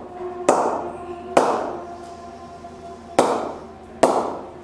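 SG willow cricket bat blade knocked four times to test its ping, each knock a sharp crack followed by a short ringing tone that fades; the punch is unchanged by the refurbishment.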